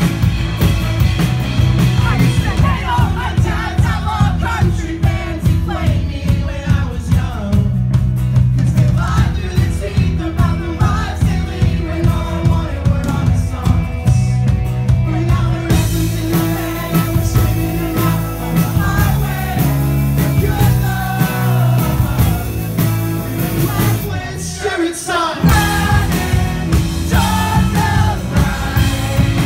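Live rock band playing loudly: drums, electric guitars and a strummed acoustic guitar, with a man singing lead. The bass and drums drop out briefly near the end before the band comes back in.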